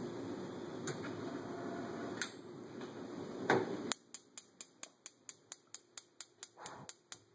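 Bluestar range-top gas burner running with a steady flame hiss that stops abruptly about four seconds in as the burner goes out. The electric spark igniter then clicks rapidly, about five clicks a second, for around three seconds, trying to relight the burner.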